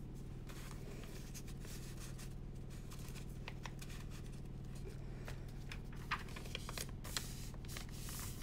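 Soft paper rustling and handling noises as the pages and popsicle-stick tabs of a handmade paper journal are moved and turned, with a few sharp clicks about six to seven seconds in, over a steady low hum.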